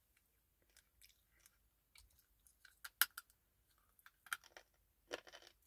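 Teeth biting into and crunching a hard, grooved edible slate clay bar: scattered crisp clicks, one sharp snap about three seconds in, and denser crunching near the end.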